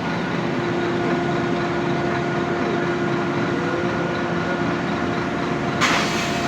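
Road traffic and vehicle engines running steadily, with a held droning tone. A short sharp hiss comes near the end.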